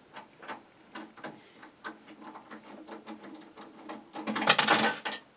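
Scattered small clicks and knocks of computer parts being handled in an open PC case during a network card install, then a louder scraping rattle about four seconds in that lasts under a second.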